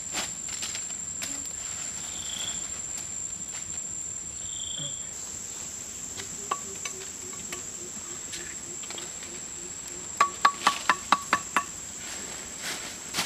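Steady, high-pitched drone of forest insects. About ten seconds in, a quick run of about eight sharp knocks.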